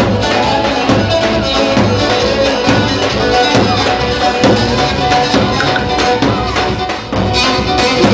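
Music with a steady percussive beat under a sustained melody line.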